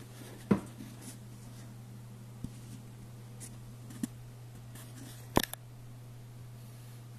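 A few sharp clicks and knocks, the loudest about half a second in and a double knock near the end, over a steady low electrical hum.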